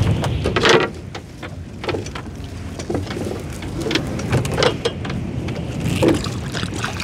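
Water splashing and dripping in scattered short strokes as a gill net is hauled over the side of a small boat, over a steady low rumble.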